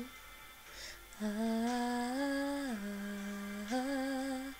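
A woman's unaccompanied voice humming or vocalising a slow, wordless melodic phrase of long held notes, starting about a second in; the pitch steps down and then back up near the end.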